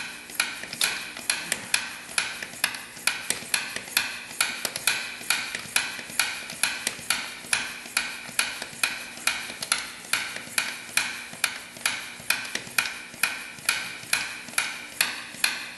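Hand-operated oil sampling vacuum pump being stroked steadily, a sharp click on each stroke about three times a second, as it draws engine oil up a tube from the dipstick tube into the sample bottle.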